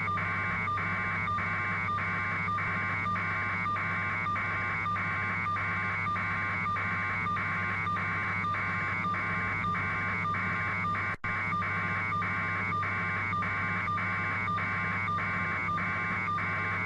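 Steady buzzing hum on a phone or radio feed, pulsing evenly about two to three times a second, with a brief dropout about 11 seconds in.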